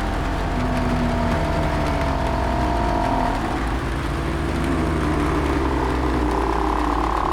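Several drawn-out zombie moans overlapping and gliding slowly in pitch over a steady low rumble.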